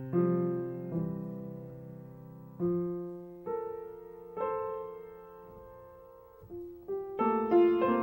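Background piano music: slow, ringing chords struck about once a second, picking up into quicker notes near the end.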